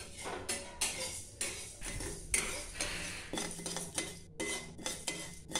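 Flat metal spatula scraping and stirring dry moong dal around a metal kadai, the dry lentils rattling across the bare pan in repeated strokes about twice a second. The dal is being dry-roasted without oil.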